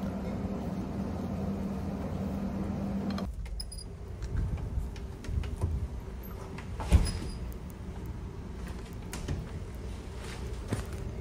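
Steady low drone of a ship's machinery heard inside the accommodation, with a held hum for the first three seconds. After that, a rumble with irregular footsteps and knocks of walking along a corridor, and one louder thump about seven seconds in.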